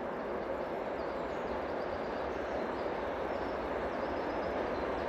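Distant 2TE10U twin-section diesel locomotive with a freight train approaching: a steady engine drone from its two-stroke 10D100 diesels, slowly growing louder.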